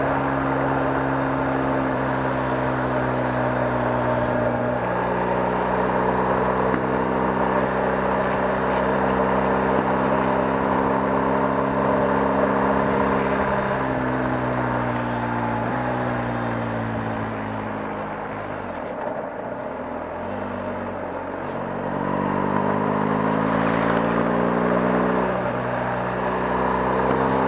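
BMW R 1250 GS motorcycle's 1254 cc boxer twin running under way. The engine pitch holds steady and then steps to new pitches several times as the gears change. About two-thirds in, the engine note falls and quietens as the bike slows, then rises again under acceleration.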